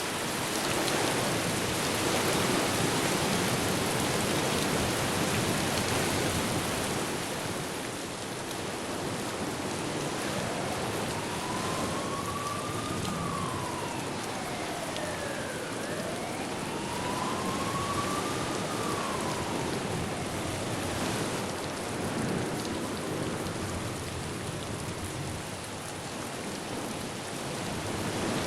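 Steady heavy rain with wind, swelling and easing a little. Through the middle a faint emergency siren wails up and down twice.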